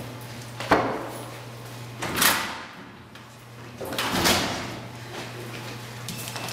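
A sharp knock about a second in, then two longer swishing noises a couple of seconds apart, over a steady low hum.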